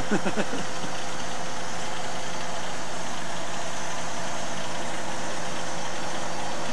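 An engine idling steadily, with an even running noise and a constant hum.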